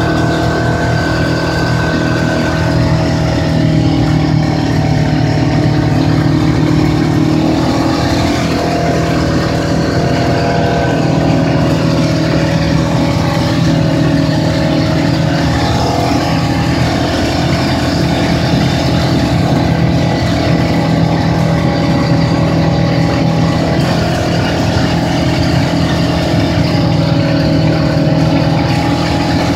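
Side-by-side UTV engine running as it drives, heard from the open cab, its pitch rising and falling a little with the throttle, with wind and road noise.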